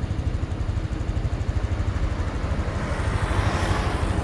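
Private jet's engines swelling into a loud rushing hiss as it comes in to land, building over the last second or so. Underneath runs a steady, rapidly throbbing low rumble.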